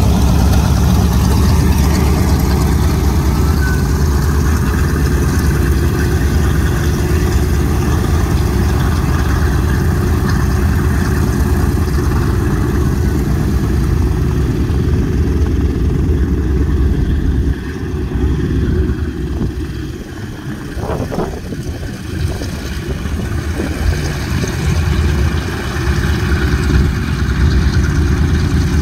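The four nine-cylinder Wright R-1820 Cyclone radial engines of a B-17 Flying Fortress running at taxi power as the bomber rolls past and away. The engine sound is a steady low drone; it drops for a few seconds about two-thirds of the way through, then swells back.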